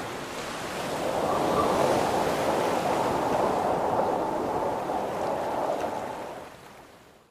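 Ocean surf: a steady rush of waves that swells a little early and fades out near the end.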